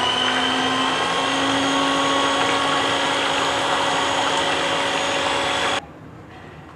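Electric hand mixer running steadily at medium speed, its twin beaters whipping a cream and milk mixture in a glass dish; the motor's whine cuts off suddenly near the end.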